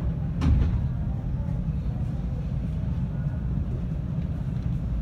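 Steady low hum of a 521-series electric train standing at a station, with two short knocks near the start.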